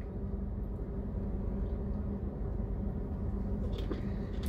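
Steady low mechanical hum inside a parked semi truck's cab, with a few light clicks near the end as a small bottle's cap is handled.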